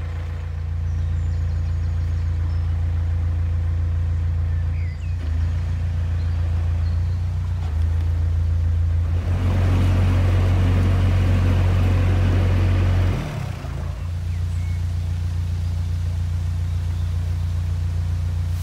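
Narrowboat engine running steadily with the boat under way. It gets louder for about three seconds around the middle, drops away briefly, then settles back to an even run.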